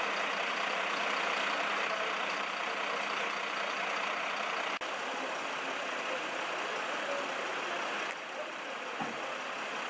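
Steady running noise of idling emergency vehicles' engines, an even rumble with no distinct events, shifting slightly where the shot changes about five and eight seconds in.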